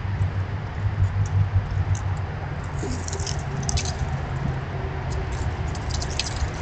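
Squirrels scampering and scratching over wood-chip mulch: scattered light patters and ticks, bunched about three to four seconds in and again near the end, over a steady low rumble.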